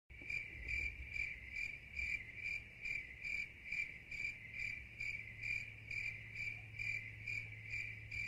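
A cricket chirping steadily, about two short chirps a second, over a faint low hum.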